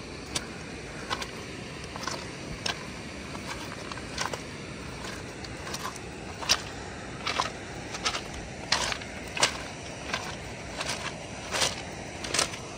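Footsteps crunching on loose, flat shale-like stones of a drained lakebed, at a steady walking pace of about one and a half steps a second.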